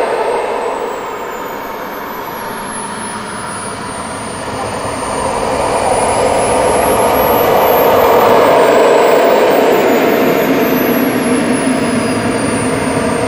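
Turbine of a model F/A-18 Hornet RC jet running as the jet taxis: a steady rushing jet noise with a high whistle that glides down, rises and falls again. It swells to its loudest about eight seconds in as the jet comes close.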